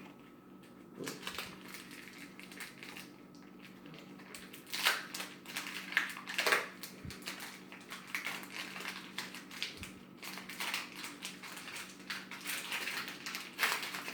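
Foil Pokémon booster pack wrappers crinkling and tearing open as the cards are handled, an irregular string of crackly rustles, loudest about five and six seconds in and near the end.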